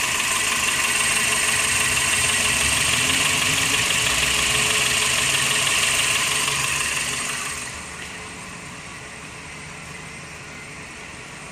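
1999 Toyota Corolla engine idling warm, the state in which its misfire has gone away. About seven seconds in, the sound drops to a much quieter steady hum.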